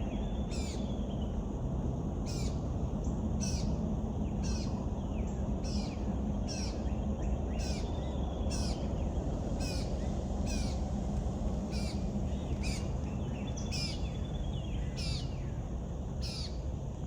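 Birds calling in the woods: a short, sharp call repeated about once a second, with a few fainter chirps between, over a steady low rumble of outdoor background noise.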